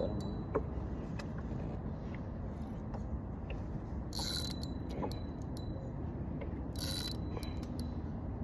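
Fishing reel being cranked while a catfish is fought, its gears clicking and turning, with two short high buzzes about four and seven seconds in, over a steady low rumble.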